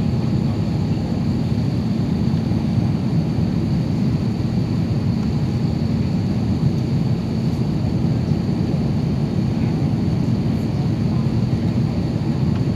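Steady cabin drone inside an Airbus A350-900 in its climb after takeoff: engine and airflow noise as a low, even rumble with a faint steady high whine above it.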